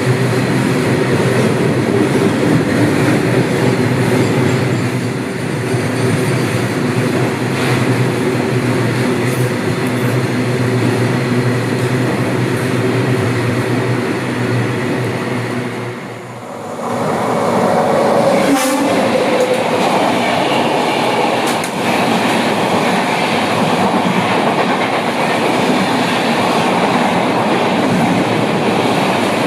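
Train running past on the track with wheel clatter. A steady low hum carries over the first half, the sound dips briefly about sixteen seconds in, then a broader rumbling noise follows.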